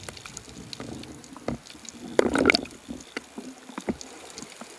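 Underwater noise picked up through a camera's waterproof housing: scattered sharp clicks and crackles, with a louder rushing burst of water noise about two seconds in.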